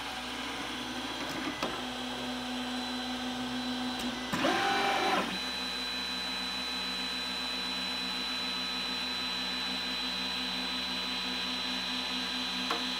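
3D printer auto-homing: its stepper motors drive the axes with a short whine that rises and falls about four seconds in, then a steady pulsing motor hum as the axis keeps travelling. Under it the small cooling fans whir steadily, and a faint click comes near the end.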